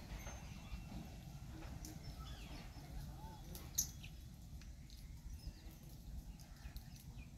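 Faint outdoor ambience: a steady low rumble with a few faint short chirping calls and scattered light ticks, and one sharp click a little under four seconds in.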